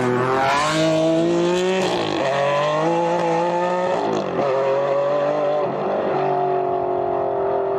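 Ferrari Enzo's naturally aspirated V12 accelerating hard. The pitch climbs through the revs and drops sharply at upshifts about two and four seconds in, then settles into a steadier high note near the end.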